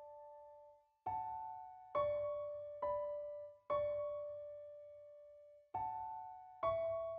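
Slow, sparse piano music: two-note chords, each struck and left to fade, six in all, with a longer pause after the fourth.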